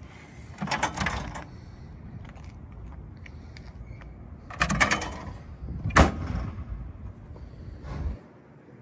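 The Ferrari Dino 246 GT's rear engine lid being handled: lifted open, then lowered and shut with a sharp latch click about six seconds in, the loudest sound, with a smaller knock near the end.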